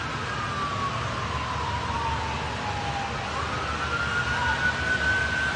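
Emergency vehicle siren in a slow wail, its pitch falling over about three seconds and then rising again, over a steady low background rumble.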